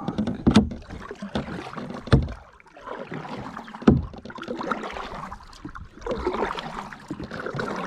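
Kayak being paddled with a single half paddle: water splashing and swishing unevenly, with several sharp knocks, the loudest about half a second, two seconds and four seconds in.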